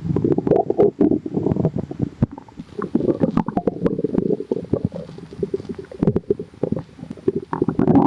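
Human stomach growling: nearly continuous bubbly gurgles and low rumbles, thick with short crackling pops.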